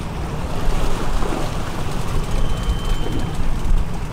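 Wind rumbling on the microphone over the wash of choppy sea around a small boat.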